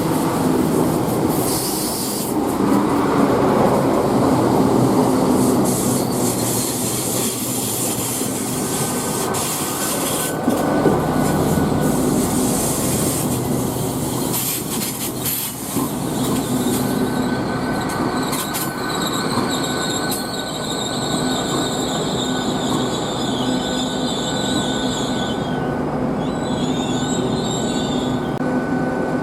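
A train running past, loud and continuous, with a low steady hum under the rail noise. From a little past halfway a high-pitched wheel squeal rises over it and holds until near the end.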